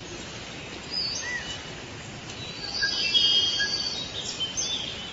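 Forest ambience: several birds giving short whistled calls and chirps over a steady background hiss, with a brief run of trilled notes about three seconds in.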